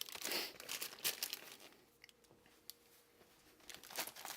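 Shipping package being torn and crinkled open by hand, in bursts of rustling and tearing. The rustling stops about a second and a half in and picks up again near the end.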